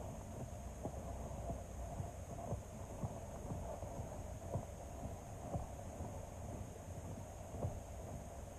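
Muffled underwater sound picked up by an under-ice fishing camera: a steady low hum with soft, irregular knocks roughly once a second.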